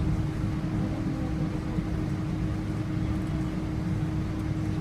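Steady cabin drone inside a Boeing 777-300 taxiing after landing: a low rumble with a constant mid-pitched hum running through it.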